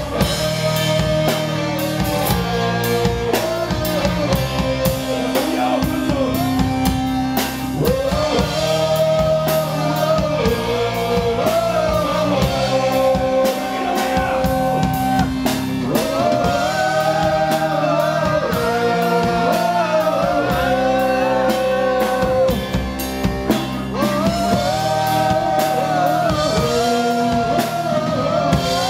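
Live rock band playing: a male lead singer sings over electric guitars, bass guitar and a Tama drum kit.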